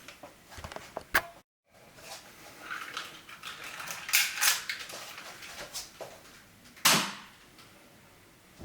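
Low-power airsoft pistol being handled and cocked: a sharp click about a second in, a few seconds of scraping and rattling as the slide is worked, then one loud sharp snap about seven seconds in.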